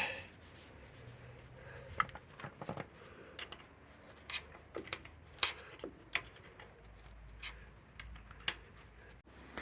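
Irregular light metallic clicks and taps of a 10 mm spanner working the steering cable's adjuster nut, a few seconds apart.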